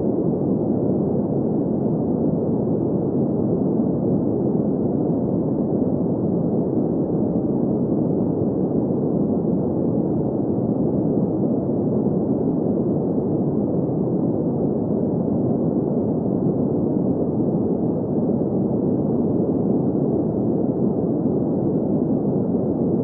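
Steady sleep-aid noise: an even, muffled hiss with its weight in the low-middle range and no treble, unchanging throughout.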